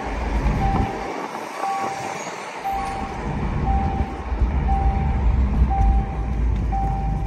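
Jaguar F-Type 400 Sport's supercharged 3.0-litre V6 running at low speed while the car is driven slowly. Its low rumble fades briefly about a second in and then comes back. A short beep repeats about once a second throughout.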